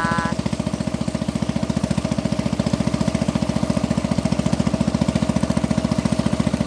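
Boat motor running steadily at constant speed, with a fast, even chugging pulse.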